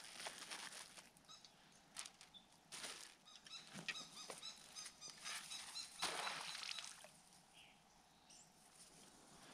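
Faint outdoor ambience: small birds chirping in quick, repeated short notes, with a few brief rustles as the rope line of a crawdad trap is handled and thrown out.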